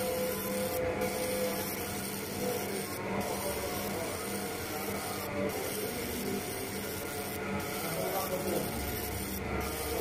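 Laser marking machine engraving numbers onto a row of bird leg rings, running with a steady hum.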